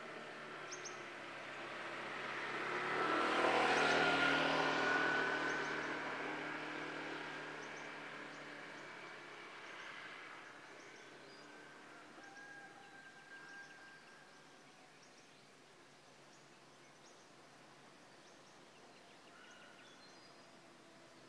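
Motorbike passing on the road: its engine gets louder to a peak about four seconds in, then fades away over the next ten seconds. Faint bird chirps sound in the background.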